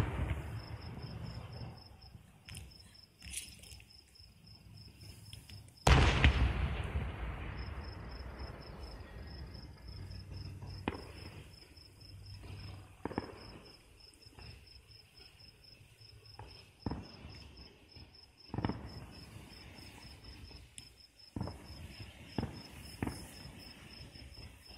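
Fireworks shells bursting in the distance over steady chirping crickets: one loud boom about six seconds in that rolls on and fades over several seconds, then several shorter, sharper bangs spread through the rest.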